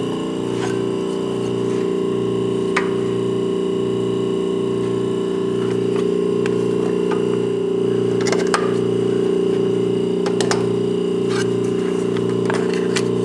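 Vacuum pump drawing down a vacuum-bagged ski runs with a steady hum and a low throb that pulses a little faster than once a second. A few sharp metal clicks and knocks come as the ski is clamped to the camber/rocker rack's bars with locking clamps.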